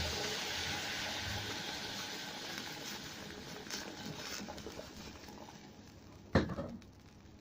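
Hot water poured into a pot of rice fried in oil with browned onion, the sizzle and steam hiss dying away steadily. A single sharp knock about six seconds in.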